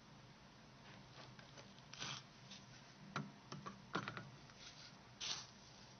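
Faint, scattered clicks and short scrapes of a small tool working on a Nokia 6680 mobile phone's parts, about half a dozen light ticks spread over a few seconds.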